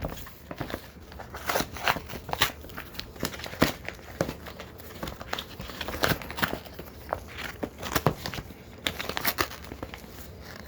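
Packaging being opened by hand: irregular crinkling, crackling and tearing with sharp little handling noises.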